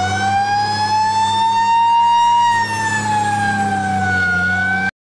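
Fire truck siren wailing: one slow rise and fall in pitch over a steady low engine hum, cutting off suddenly near the end.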